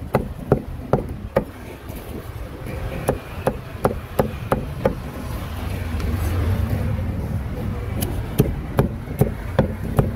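Cleaver chopping grilled meat on a chopping board: a run of sharp strikes about two to three a second, pausing for about three seconds in the middle while a low rumble swells, then chopping again.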